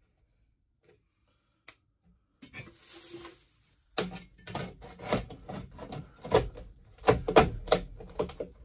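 A long sheet-metal strip being handled and fitted along a metal door threshold: a soft scrape, then from about halfway in a run of clattering knocks and scrapes as it is pressed into place, loudest near the end.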